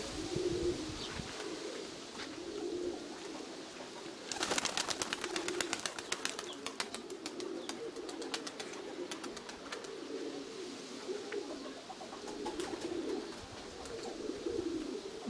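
Nikolaev pigeons cooing over and over. From about four seconds in, a fast, dense clatter of clicks runs for some six seconds, loudest at its start, then thins out.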